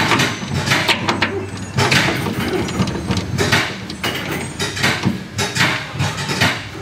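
Cordless ratchet running in short bursts on a rear shock's upper 21 mm mounting bolt, with irregular clicks and clanks of metal on metal.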